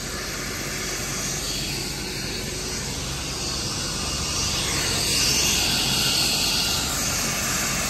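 A helicopter running close by, its turbine and rotors making a steady rushing noise that grows a little louder about five seconds in.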